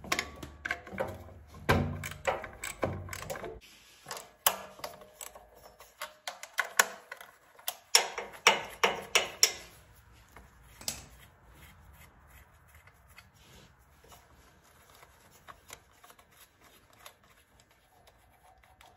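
Irregular metallic clicks and light clanks of hand tools and small engine parts being worked while a bolt is taken out of a small generator engine. They come thick for about the first ten seconds, then thin out to occasional faint ticks.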